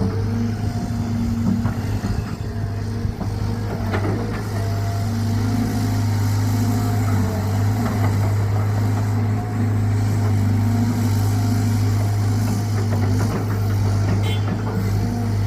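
Caterpillar 320GC excavator's diesel engine running steadily with a low drone, with a single knock about four seconds in.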